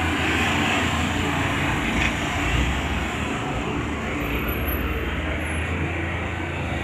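Heavy diesel engine of a dump truck or bulldozer running steadily, a constant low rumble with no change in speed.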